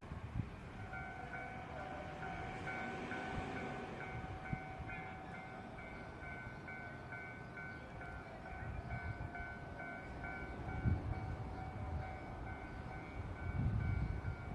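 Level-crossing warning bell ringing in a steady run of repeated electronic clangs, over the low rumble of a train on the line.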